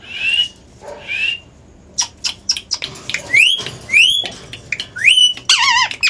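Indian ringneck parakeets calling: about five short whistles, each rising in pitch, with a few sharp clicks in between. Near the end comes a wavy, meow-like call.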